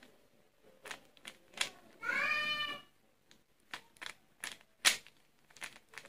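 Plastic Rubik's cube layers being turned by hand: a scattering of short clicks and snaps, the sharpest a little before the five-second mark. About two seconds in, a brief high-pitched call lasting under a second.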